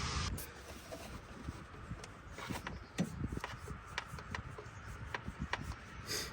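Scattered light clicks and rubbing as a fuel pressure tester and its hose are handled on the engine's fuel rail test port.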